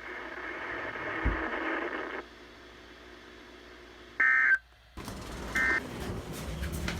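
Weather radio receiver hissing with static after the broadcast voice stops, then a short screechy digital data burst about four seconds in and another brief one near six seconds. These are the SAME code tones that frame a NOAA Weather Radio alert.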